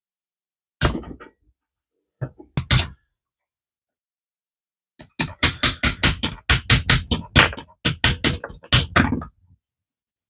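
Sharp knocks and clacks as 18650 lithium-ion cells are pried and broken out of a Bosch 18V 5Ah battery pack's plastic cell holder to replace the dead cell bank. A single knock comes about a second in and two more near three seconds. From about halfway to near the end there is a quick run of around twenty knocks, roughly five a second.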